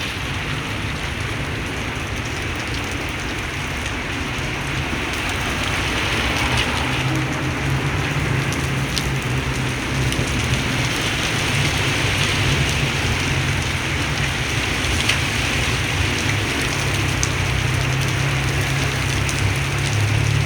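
Heavy rain pouring down in a thunderstorm, growing louder about six seconds in, with a low uneven rumble of gusting wind.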